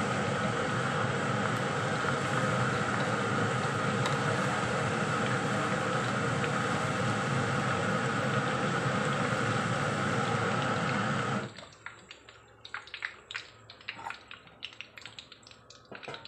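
Sliced okra deep-frying in hot oil in an iron wok, a steady loud sizzle that stops abruptly about eleven seconds in. Only light crackles and drips follow as the fried okra is held above the oil in a slotted skimmer to drain.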